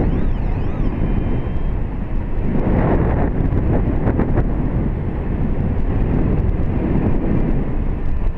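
Airflow buffeting an action camera's microphone during a tandem paraglider flight: loud, steady wind noise, with a few short clicks or rustles about three to four seconds in.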